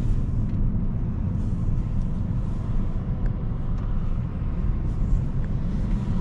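Steady low road and tyre rumble heard inside the cabin of a Tesla Model S Plaid electric car driving along, with no engine note.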